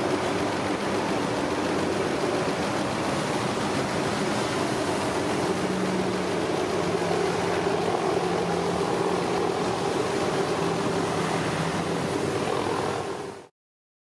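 Steady roar of heavy surf and whitewater from giant breaking waves, with an engine humming under it. The sound cuts off suddenly near the end.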